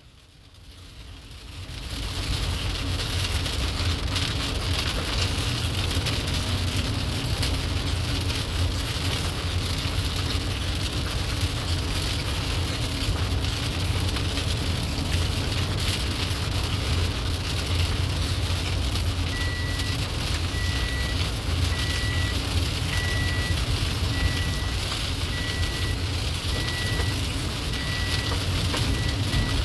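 Road and engine noise inside a moving vehicle: a steady low rumble with a hiss over it, swelling in over the first two seconds. From about two-thirds of the way in, a short high electronic beep repeats roughly once a second, coming a little faster near the end.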